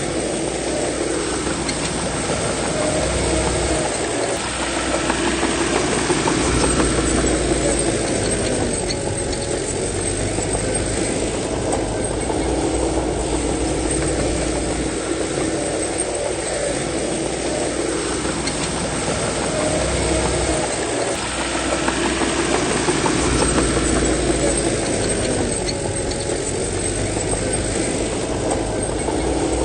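Bulldozer's diesel engine working under load while pushing soil, its pitch rising and falling again and again every several seconds.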